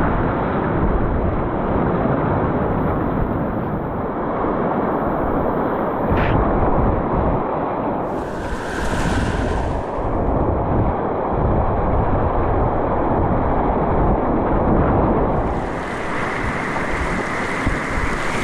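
Whitewater rushing through river rapids around a kayak, a steady wash of water noise picked up close by a GoPro camera's microphone.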